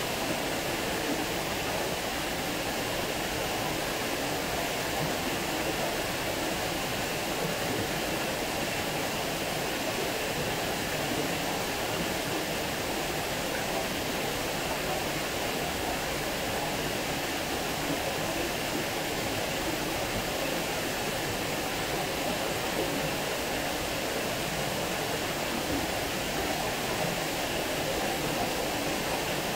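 Water pouring over a small stone weir and splashing into the pool below: a steady rushing of falling water that does not change.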